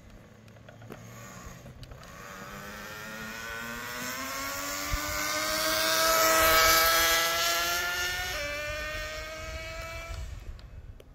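Traxxas 4-Tec nitro RC car's small glow-fuel engine accelerating on a speed run: a high-pitched whine climbing steadily in pitch, growing loud as the car passes about six and a half seconds in. About eight seconds in the pitch drops suddenly, then climbs again before the sound fades away.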